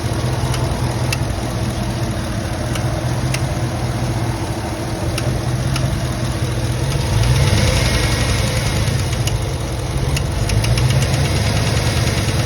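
2007 GMC Yukon V8 running with a sharp ticking from the valvetrain, revved up about seven seconds in and again near ten seconds. The tick is the noise put down to a sticking lifter or a bad rocker arm.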